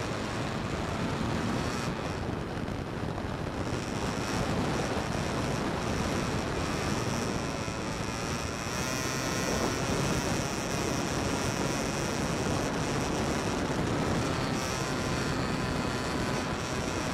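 Electric motor and propeller of an E-flite Timber X RC plane heard from a camera mounted on the plane in flight: a steady high whine over a dense rush of air.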